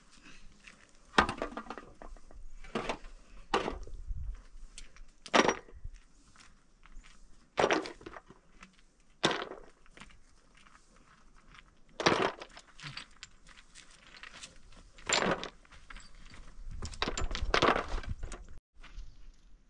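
Stones and concrete blocks knocking and clinking as they are handled and set during block-wall building, with a sharp impact every second or two and a longer rattling stretch near the end.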